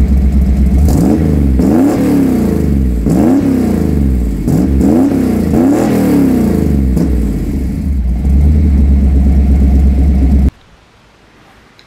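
An engine revving over and over, its pitch rising and falling about once a second over a steady low drone, cutting off suddenly near the end.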